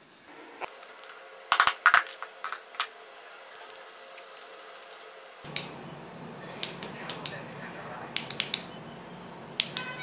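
Small metal flashlight tailcap parts clicking and clinking as they are handled, in irregular sharp clicks with the loudest cluster about a second and a half in.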